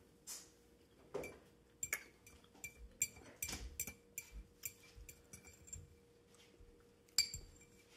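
A metal fork clinking and scraping against a ceramic bowl while picking up food, a string of light clinks with a sharper one near the end.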